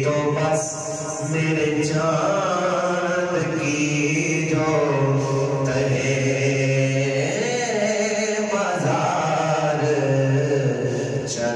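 A man's solo voice singing an Urdu devotional kalam unaccompanied. He draws out long, ornamented held notes, pausing briefly for breath about a second in and again near eight seconds.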